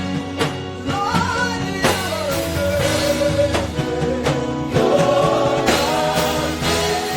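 Live gospel worship music: singers carrying a melody over sustained band chords, with a steady drum beat.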